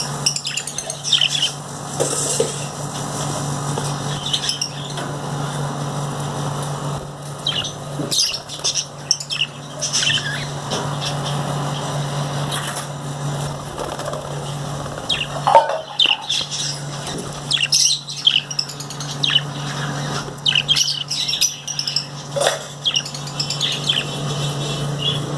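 Small birds chirping in many short, high calls throughout, over a steady low hum.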